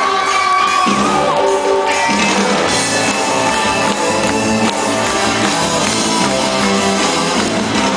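A live rock band playing loudly, with electric guitars and a voice singing over them.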